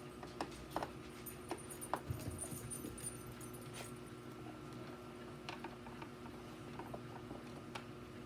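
Scattered light clicks and taps, about a dozen, irregularly spaced, over a faint steady hum.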